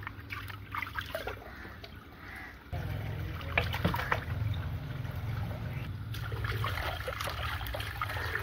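Water from a garden hose pouring and splashing into a clay bowl as raw chicken pieces are rinsed and swished by hand; the flow becomes steady and louder about three seconds in.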